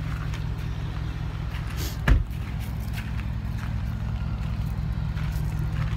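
Porsche Cayenne engine idling, a steady low rumble, with one sharp knock about two seconds in.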